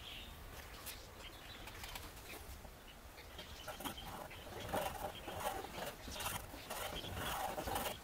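A knife blade stirring and scraping glue on masking tape over a workbench: light, repeated scratchy strokes that start a few seconds in and grow busier and louder toward the end.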